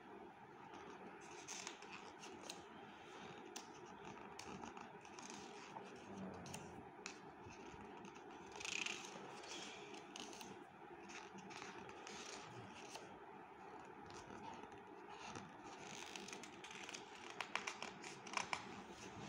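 Pages of a hardcover picture book being handled and turned: soft paper rustles and swishes every few seconds over a steady low hiss, with a cluster of small sharp clicks and taps near the end.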